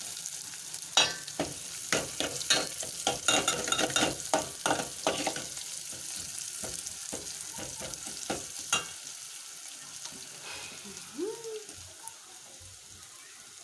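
Chopped onions, garlic, ginger and green bell pepper sizzling in hot oil in a pan, with a spoon stirring and scraping through them in quick clicks over the first half, then thinning out to a steadier sizzle.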